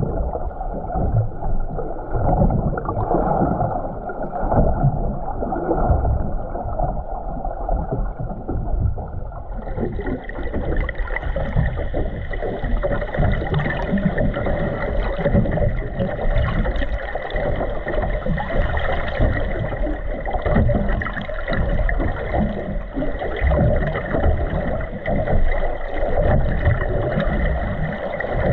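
Muffled underwater rumble and sloshing of water around a submerged camera near the surface. About ten seconds in, a steady higher hum joins and stays.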